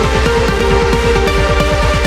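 Background electronic dance music with a fast, steady beat and sustained synth tones.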